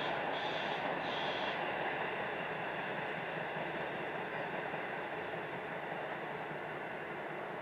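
Steady rumble of a steam-hauled passenger train receding into the distance, fading slowly.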